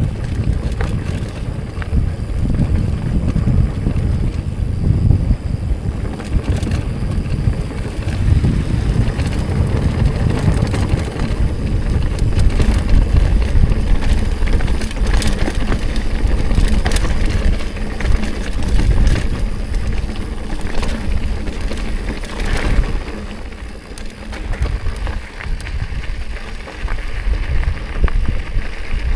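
Mountain bike riding a rocky dirt trail: heavy wind rumble on the camera microphone, with scattered clicks and clatter from the bike and tyres over rock.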